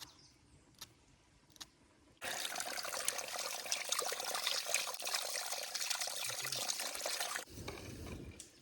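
Water running and splashing, loud and even, which starts abruptly about two seconds in and cuts off abruptly about five seconds later. A few faint clicks come before it.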